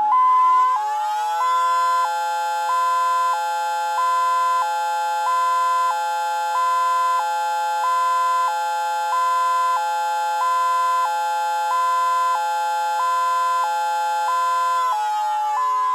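An electronic siren sounding a hi-lo signal, two pitches alternating about every two-thirds of a second. A mechanical siren sounds with it on its ASC/ACA fire signal: it winds up to full pitch in the first second and a half, holds a steady tone, and starts winding down near the end.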